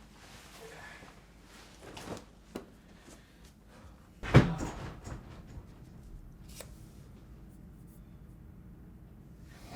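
Scattered knocks and clunks, the loudest a single sharp thud about four seconds in.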